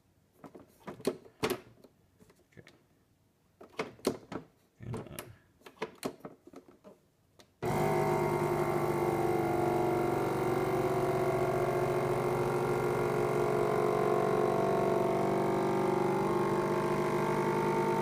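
A few scattered clicks and taps, then about seven and a half seconds in a FoodSaver V2490 vacuum sealer's pump motor starts abruptly and runs with a steady hum, drawing a vacuum on a canister through the accessory hose.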